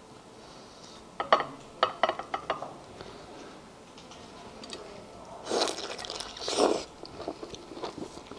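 Close-miked eating of sauce-soaked lobster meat: a quick run of sharp clicks and crackles about a second in, then two louder bites near the middle, followed by soft chewing noises.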